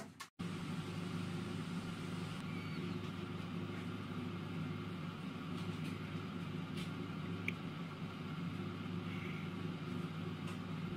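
SilverCrest digital air fryer running mid-cycle at 180 °C: its fan and heater giving a steady hum, broken by a very short gap just after the start.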